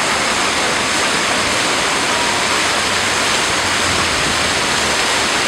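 Large public fountain's water jets and spilling water making a steady, unbroken rush.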